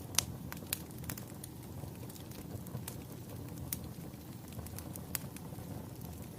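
Wood fire crackling: irregular sharp pops and snaps over a steady low rumble of burning flames, with the loudest snaps just after the start and a few more scattered through.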